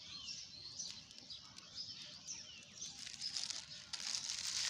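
Small birds chirping, with many short high chirps overlapping one another over a faint outdoor background.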